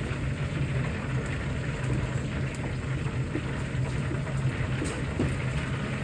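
Hot oil sizzling and crackling in a wok as fried chicken karaage is lifted out with a wire strainer, over a steady low hum of kitchen equipment. A few light metal clicks of the utensils against the wok.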